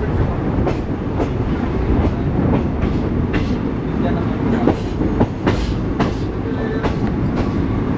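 Moving Indian Railways passenger coach running on the track: a steady rumble with irregular sharp clicks and clatter of the wheels over rail joints.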